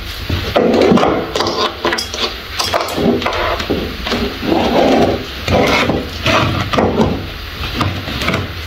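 Plastic parts of a small electric food chopper and a plastic plate being handled and set down on a table: a run of irregular knocks, clatters and rubbing, with no motor running.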